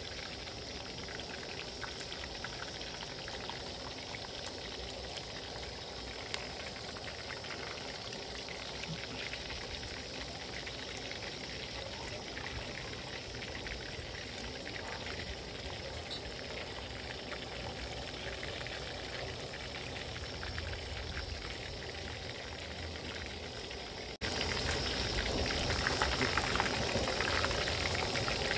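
Chicken leg pieces deep-frying in hot oil, a steady sizzle with fine crackles. It jumps louder about three-quarters of the way through.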